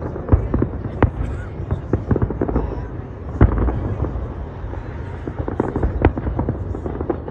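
Distant aerial firework shells bursting in a string of booms and crackles over a steady low rumble, the loudest bang about three and a half seconds in.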